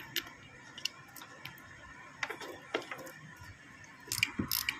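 Ratchet plug spanner clicking in short runs as a scooter's spark plug is screwed down tight, with the clicks coming thicker and faster near the end. The plug had worked loose in running, the cause of the engine cutting out.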